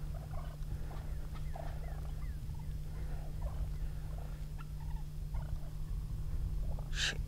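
Wild turkey toms calling softly in short, scattered notes, over a steady low rumble.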